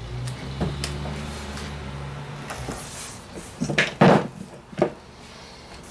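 Three dull knocks of equipment being handled and set down, about four seconds in, the middle one loudest. Before them, a low hum that stops a little over two seconds in, with a few light clicks.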